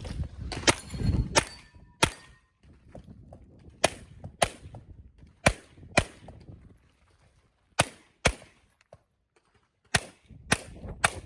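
Handgun shots fired in quick pairs while shooting an IPSC stage: about a dozen shots, two at a time roughly half a second apart, with pauses of one to two seconds between pairs.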